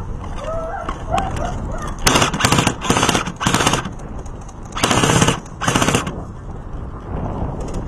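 Airsoft guns firing rapid bursts of automatic fire, several bursts a couple of seconds in and two more about a second later.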